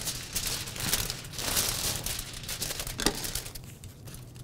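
Heavy-duty aluminum foil crinkling in irregular bursts as a sheet is handled and folded. The sound dies down for the last second.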